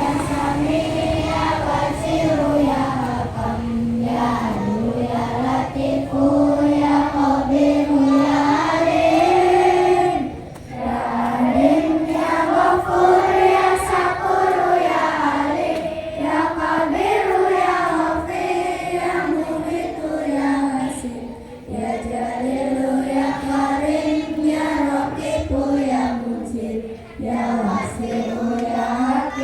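A group of schoolchildren singing a prayer together in unison, in long melodic phrases with short pauses about 10, 21 and 27 seconds in.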